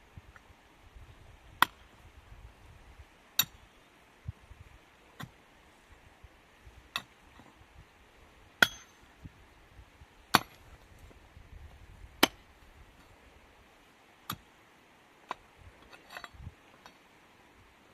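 Sharp clinking knocks repeating about every one and a half to two seconds, like a hand tool striking something hard.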